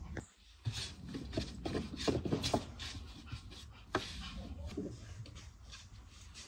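Wooden rolling pin working dough on a wooden board: irregular rubbing with light wood-on-wood knocks.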